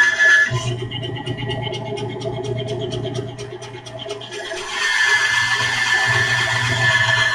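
A power tool running, switching between a steady high whine and a lower hum with rapid even ticking, about five a second, then back to the whine about two-thirds of the way through.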